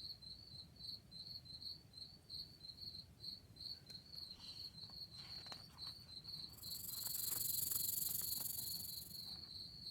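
Crickets chirping steadily, a high pulsing trill of about three chirps a second. In the second half a soft high hiss swells for about three seconds and is the loudest sound, with a few faint clicks just before it.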